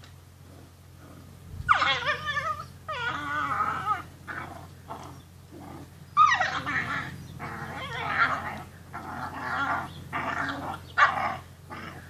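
Rhodesian Ridgeback puppies' play noises: a string of high, wavering yelps and whines mixed with short yips and growls. They start about two seconds in and come in bursts.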